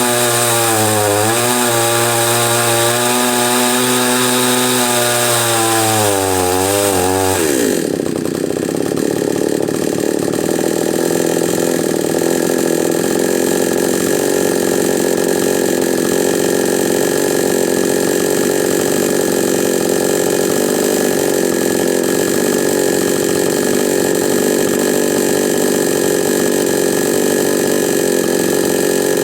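Chinese 45cc two-stroke chainsaw with new piston rings, running at high revs with a wavering pitch. About seven seconds in the pitch drops sharply, and it runs on at a lower, rougher speed.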